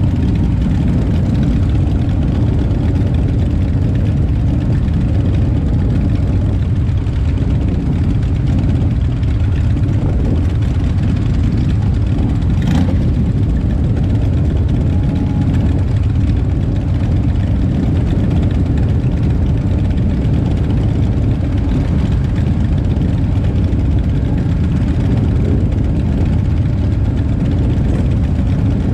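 A group of stopped motorcycles idling together: a steady, low engine sound. There is one short sharp click about halfway through.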